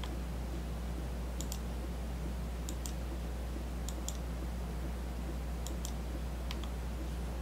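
Computer mouse button clicking: several sharp clicks, mostly in quick pairs, over a steady low electrical hum.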